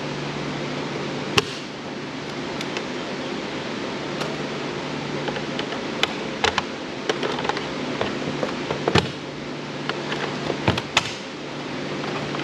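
Steady hum of a fan or air conditioner in a small room, with scattered short clicks and knocks from handling the Roomba's plastic housing and screws, the loudest about a second in and about nine seconds in.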